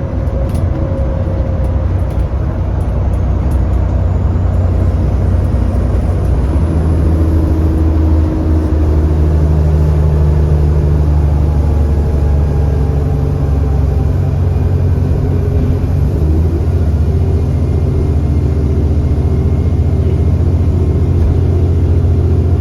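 Bus diesel engine, a 6.7 litre Cummins ISB, running steadily under way; about six seconds in its note steps up and gets heavier and stays so, with a faint high whine rising in pitch over the first several seconds.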